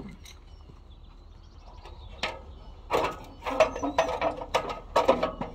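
Aluminium extension ladder clanking as someone climbs it: a run of metallic knocks begins about two seconds in, roughly two a second.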